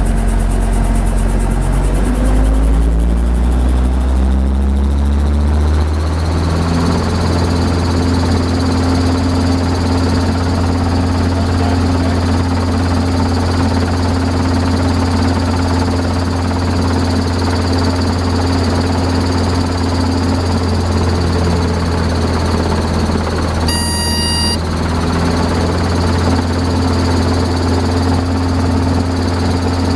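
Robinson R22 helicopter's four-cylinder piston engine and rotor heard from inside the cockpit, rising in pitch over the first several seconds as it comes up to speed, then running steadily. A brief high tone sounds once, about three-quarters of the way through.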